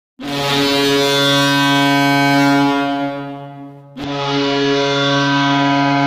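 HC Vítkovice Ridera's ice hockey goal horn sounding two long, low blasts. The first lasts about three seconds and fades away; the second starts about four seconds in and is still sounding at the end.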